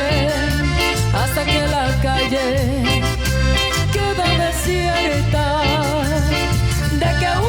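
Live cumbia band playing: a steady bass and drum groove with cymbal strokes under a melodic lead line with vibrato.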